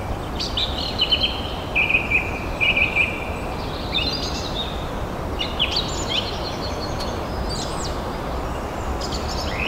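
A mountain creek rushing steadily over rocks, with small birds chirping and singing over it in short repeated phrases.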